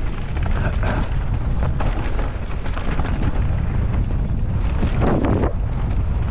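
Wind buffeting the microphone on a fast e-mountain-bike descent, over the rumble of tyres on a dirt trail, with the bike knocking and rattling over bumps. A louder rough rush comes about five seconds in.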